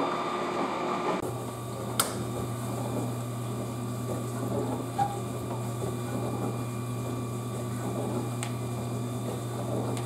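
Frigidaire dishwasher running, water circulating inside the tub, with a steady pump hum that sets in about a second in. One sharp click about two seconds in.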